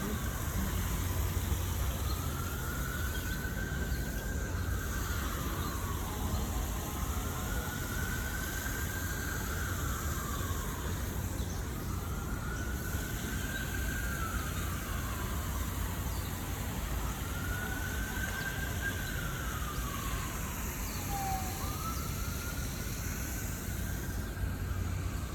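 An emergency vehicle siren wailing, its pitch rising, holding and then falling in a slow cycle about every four seconds, over a steady low rumble.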